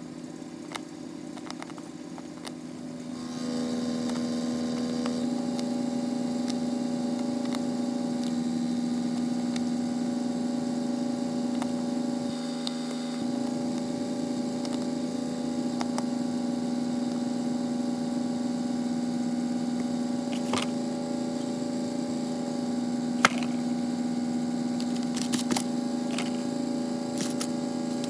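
A steady machine hum with a strong low tone, louder from about three seconds in, and a few sharp clicks near the end.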